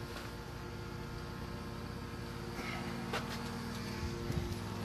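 A steady low mechanical hum, with a couple of faint clicks about three and four seconds in.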